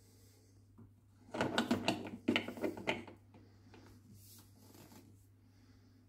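Mini Moka espresso machine's metal portafilter being pushed up into the group head and twisted to lock: a quick run of clicks, scrapes and knocks lasting about two seconds, starting about a second and a half in.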